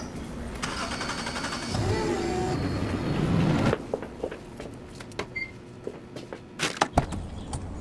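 Electric forklift motor whining, its pitch gliding up and down, cutting off abruptly a little under four seconds in. A few scattered sharp clicks and knocks follow.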